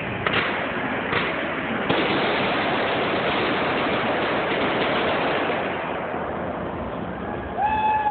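Fireworks going off: a few sharp bangs in the first two seconds, then a dense, continuous crackle that eases a little near the end.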